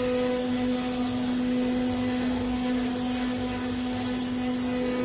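CNC wood router running as it carves a teak door panel, a steady hum held at one even pitch.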